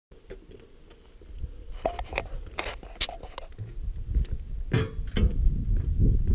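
Bicycle rolling over a cobblestone walkway: the bike and its handlebar camera mount rattle and clink sharply at irregular moments, over a low rumble that grows louder as the bike picks up speed.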